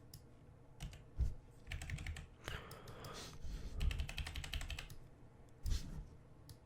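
Computer keyboard keys and clicks tapped in irregular clusters, as in keyboard shortcuts while editing.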